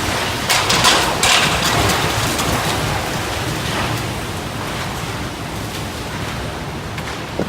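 Typhoon Jebi's storm wind and driving rain, strongest in the first second and a half, then slowly easing.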